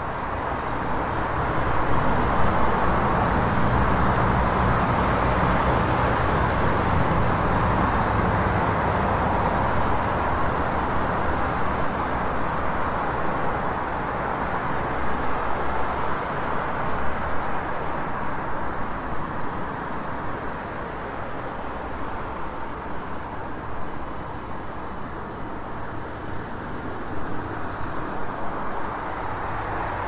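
City street traffic: a steady wash of car and engine noise with a low rumble underneath, swelling over the first couple of seconds and then holding level.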